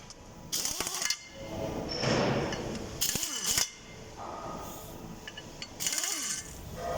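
Hand tools working on the metal parts of a geared elevator winch: four short bursts of scraping and clanking about a second or two apart, some with a brief squealing slide.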